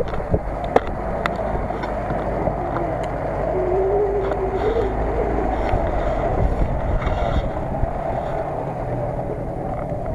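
UAZ-469 off-road vehicle's engine running steadily at low revs as it crawls past close by. There are a few sharp clicks in the first second or so and a faint wavering whine around the middle.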